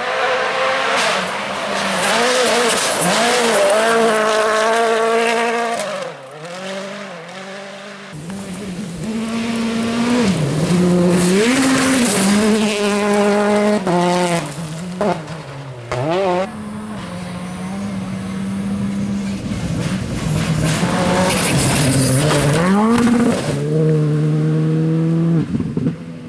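Turbocharged four-cylinder rally cars driven flat out in several separate passes: each engine note climbs steeply through the gears and drops sharply at every upshift or lift, then climbs again.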